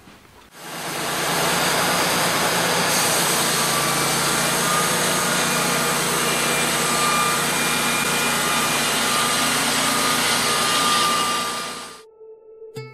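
Wood-Mizer horizontal bandmill sawing: the mill's engine running under load while the band blade cuts along the edge of a long wooden flitch. The steady noise comes up within the first second and cuts off suddenly near the end.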